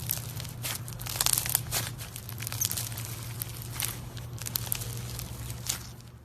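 Slime being worked by hand, with irregular sharp crackling and popping squelches, loudest in a quick cluster a little over a second in. A steady low hum runs underneath.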